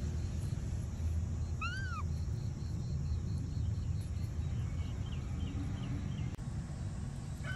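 One short animal call that rises and falls in pitch, about two seconds in, over a steady low rumble. Faint rapid chirping sounds in the background in the middle.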